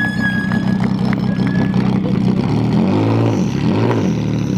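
Car engine idling, with the revs rising and falling twice about three seconds in.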